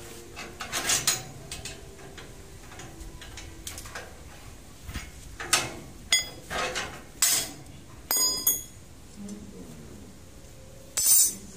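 Steel rebar being bent into stirrups by hand with a pipe lever on a bending jig: a series of irregular sharp metal clinks and clanks, some with brief ringing, the loudest near the end.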